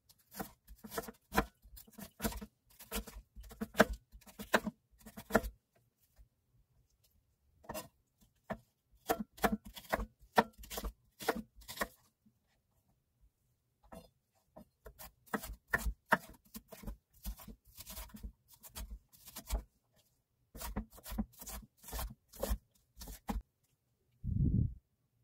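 Kitchen knife slicing and then dicing an onion on a wooden cutting board: runs of quick knocks of the blade striking the board, several a second, broken by short pauses.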